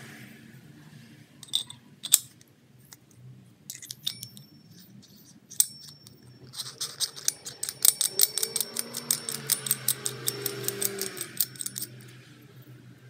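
Sharp, small metallic clicks and taps, scattered at first. From about six and a half seconds in they become a fast, even run of ringing clicks, about seven a second, lasting some five seconds.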